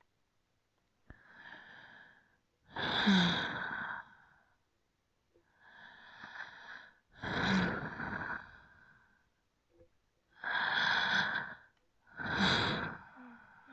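Slow, deep human breathing close to the microphone: a series of long breaths, each one to two seconds, some soft and some loud, the last two loud ones close together near the end.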